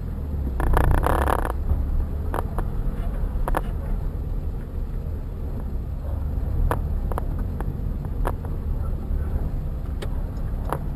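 A car driving, with a steady low rumble of engine and road noise. A brief louder rush comes about a second in, and scattered sharp clicks and knocks sound throughout.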